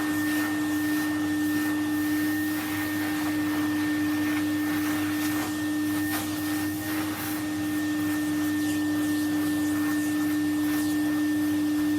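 Vacuum cleaner running steadily with a brush attachment, its motor giving a strong even hum with a fainter high whine, and faint rushes coming and going as the nozzle moves.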